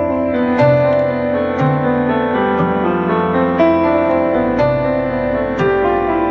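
Keyboard-led music with held notes and a light beat about once a second; the bass line shifts about four seconds in.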